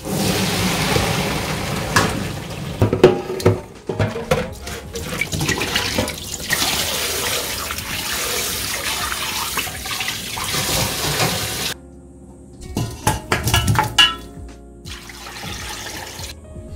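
Boiling water and blanched pork ribs poured from a stainless pan into a metal colander in the sink, then tap water running over the ribs as they are rinsed by hand, with knocks of bone and metal. The water stops about twelve seconds in, followed by a few knocks and a short pour of water from a cup into a stainless pressure cooker.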